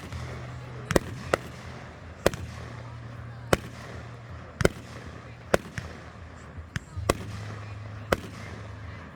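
Fireworks going off: sharp single bangs about once a second, around ten in all, over a steady low hum.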